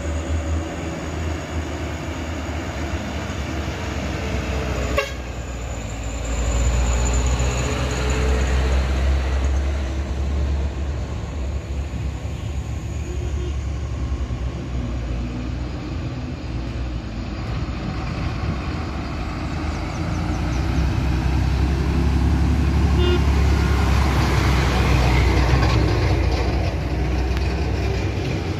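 Engines of cars, a minibus and light box trucks running under load as they climb a steep road past the microphone, with a horn tooting. The traffic grows louder about 6 s in and again near the end as more vehicles come up the hill.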